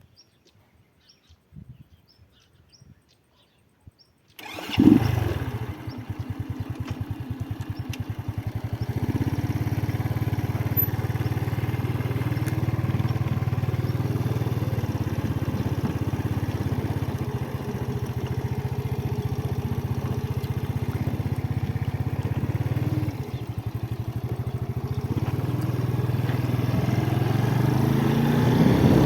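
Motorcycle engine starting about four seconds in, then idling with a steady rapid pulse. Near the end the revs rise.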